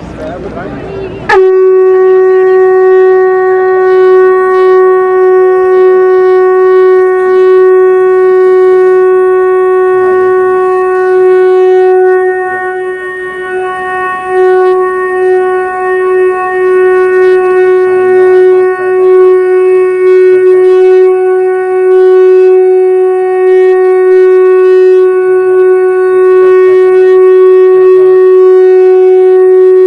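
Conch shell (shankh) blown in one long, steady note that starts sharply about a second in and is held unbroken, dipping slightly in loudness midway.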